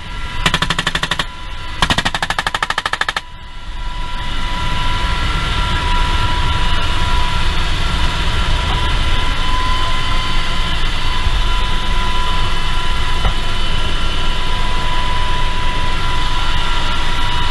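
Two long bursts of rapid machine-gun fire in the first three seconds, heard from inside a UH-60 Black Hawk helicopter in flight. After that, the helicopter's steady engine and rotor noise with a constant whine fills the cockpit.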